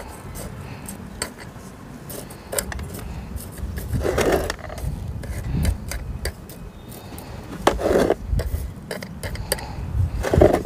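Metal tweezers scraping and clicking in gritty potting mix and against a ceramic pot's rim, with rubber-gloved hands rubbing against the succulent leaves; three louder rubbing swells stand out.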